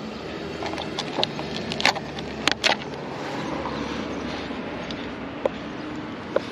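Clear plastic container and lid handled with gloved hands: a few sharp clicks and taps, over a steady low rumble.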